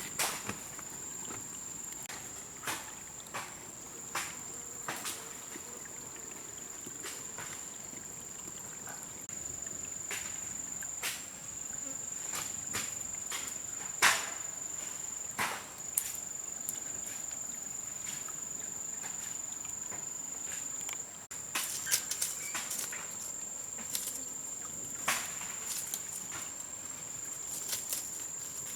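Insects in the forest make a steady, high-pitched drone, with scattered sharp clicks and knocks over it.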